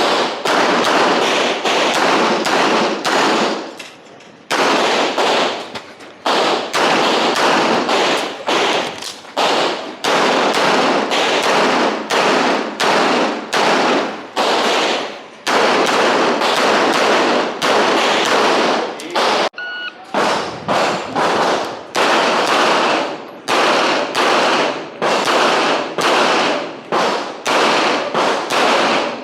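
Handgun fired in fast strings of shots, several a second, each crack trailing a short echo. The strings break off briefly about four seconds in and again about twenty seconds in, as the shooter moves or reloads between target arrays on a practical-shooting course of fire.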